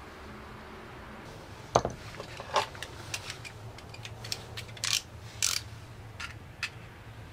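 A sharp knock about two seconds in, then a run of irregular clicks and short scrapes from a snap-off utility knife's ratchet slider as its blade is pushed out.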